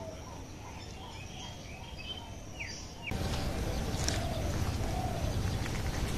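Small birds chirping and calling, with one quick downward-sweeping call, over a low rumble of wind on the microphone. About three seconds in, this gives way to a louder, even rustling noise with a few scratchy strokes.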